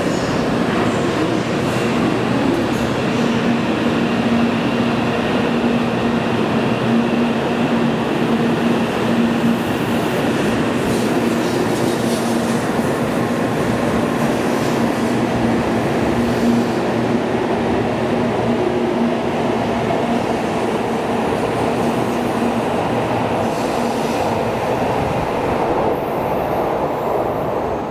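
N700-series Shinkansen train pulling out of the station and running on, a steady rail noise with a constant hum beneath it.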